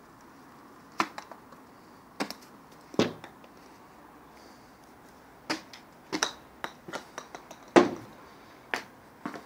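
Irregular sharp clicks and knocks, about a dozen, spaced unevenly over a low hiss; the loudest comes a little before the last two seconds.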